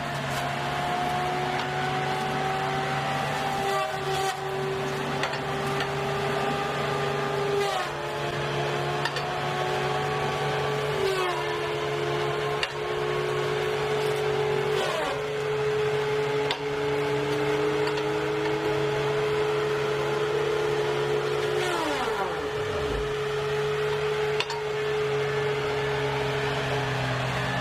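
Wheeled feller buncher running steadily, its diesel engine droning under the whine of the spinning saw in its felling head. The whine drops sharply in pitch four times as the saw bites into the trunks.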